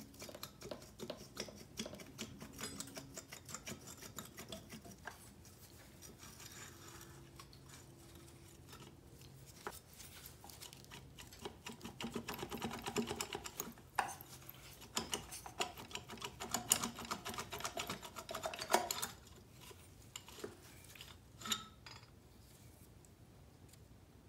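Hand tools and small metal engine parts clinking and rattling in quick runs of clicks as an engine is worked apart, busiest for several seconds past the middle and dying down near the end.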